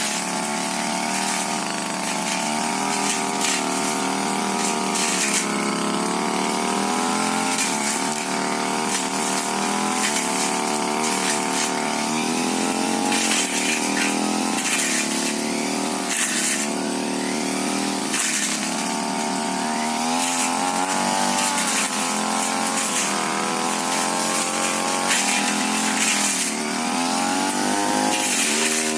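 Tiger TG328 two-stroke brush cutter running at high revs while cutting brush. Its engine pitch dips and climbs back again and again as the blade is loaded by the scrub.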